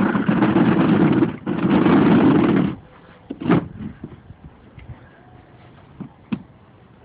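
A plastic chair's legs scraping across a concrete floor as it is pushed, in two long scrapes with a short break between them, followed by a few light knocks.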